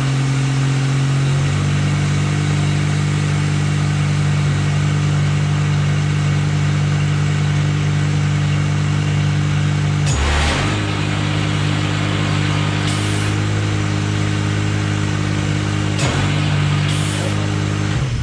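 Ventrac compact tractor engine running steadily just after starting; its speed steps up about a second and a half in. Around ten seconds in a short rush of noise cuts across it and the engine note shifts, and a short sharp knock comes about sixteen seconds in.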